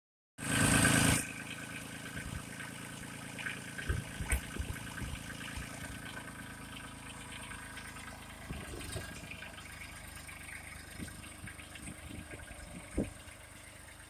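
Kubota compact tractor's diesel engine running steadily as the tractor drives off through snow, growing fainter as it moves away. A brief loud rush of noise opens the sound, and a few faint knocks and clicks come through the hum.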